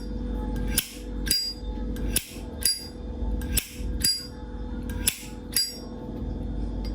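Vintage Zippo lighter's metal lid flicked open and snapped shut four times in a row, each a sharp metallic click with a brief ring, the open and shut about half a second apart. A steady low hum runs underneath.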